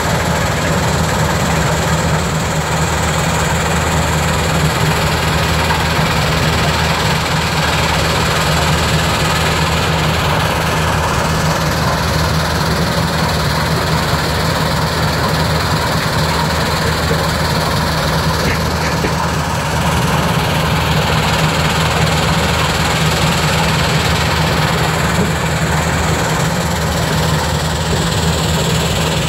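Tracked Terex XR400 jaw crusher and screening plant running together: a steady diesel drone under a continuous rattle of crushed stone moving over the conveyors and screens.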